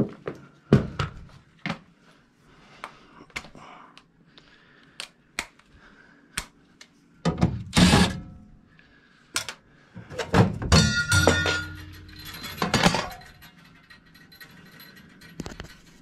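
Clicks, clunks and knocks of hand tools and the furnace's sheet-metal cabinet being handled, with a loud clatter about eight seconds in and a brief mechanical whir a few seconds later.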